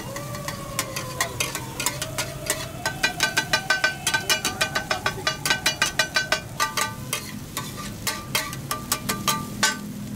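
Two flat metal spatulas clanking and scraping on a hot iron griddle, chopping an egg with onions and chillies into pieces. It is a rapid, uneven clatter of strikes with a metallic ring, busiest in the middle and thinning out near the end.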